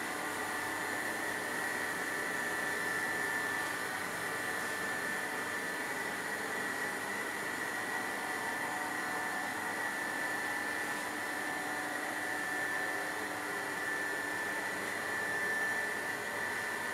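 A steady motor whir with a constant high-pitched whine running through it.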